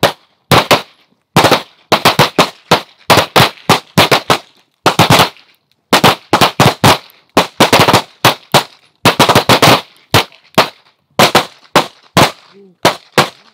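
Several shooters on a firing line fire semi-automatic pistols at once: a long, uneven string of overlapping shots, several a second, with brief lulls.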